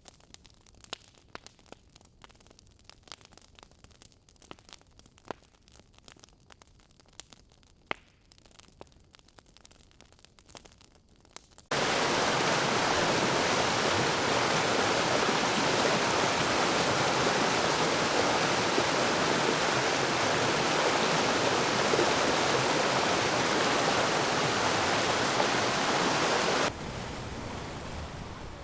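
Faint crackling with scattered sharp clicks. About twelve seconds in, a loud, steady static hiss starts abruptly and runs for about fifteen seconds. It then cuts off suddenly to a quieter rushing noise.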